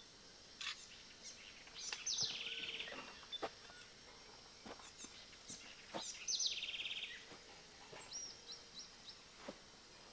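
A songbird sings the same phrase twice, each a high note dropping into a fast, even trill about a second long. Near the end come four short, high call notes, with scattered brief clicks in between.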